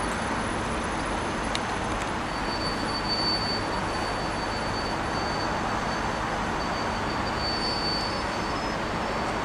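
Class 37 diesel-hauled test train pulling slowly out of a station: a steady rumble from the English Electric V12 engine and the train, with a thin high-pitched whine that comes in about two and a half seconds in and wavers on and off.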